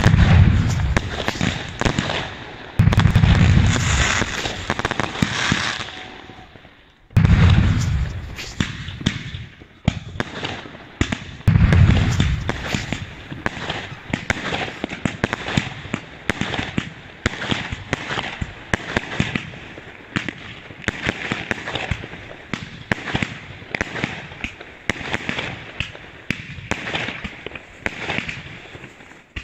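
Consumer fireworks going off: four heavy booms of aerial bursts in the first twelve seconds, then a dense run of rapid crackling pops from many small bursts.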